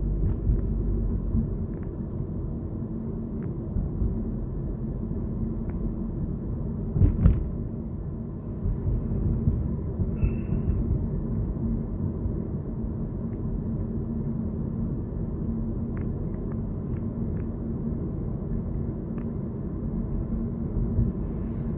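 Steady low road and engine rumble heard inside the cabin of a tenth-generation Honda Civic while driving, with scattered light clicks and a louder thump about seven seconds in.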